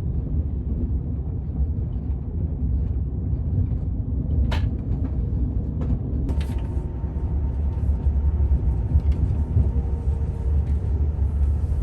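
Steady low rumble of a moving vehicle, with a couple of brief clicks partway through.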